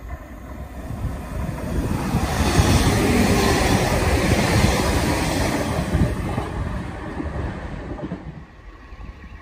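Northern Class 195 diesel multiple unit passing close by at speed: the rumble and rush of the train builds over a couple of seconds, stays loud for about four seconds, then fades as it draws away.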